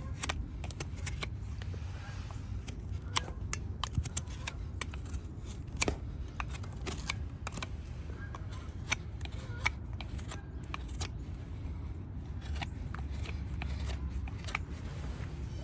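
A hoof being trimmed with a farrier's hand tools: irregular sharp clicks and snips, with a steady low rumble underneath.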